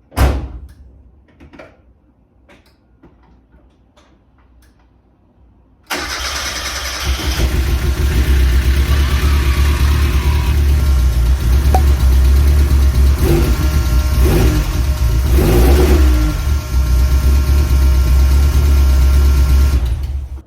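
A few faint clicks, then about six seconds in a first-generation Mazda Miata (Eunos Roadster) four-cylinder engine is suddenly running loudly, and it cuts off just before the end. It runs rough because the ignition timing has not yet been set, after a no-spark fault cured by new coils, plug wires and crank angle sensor.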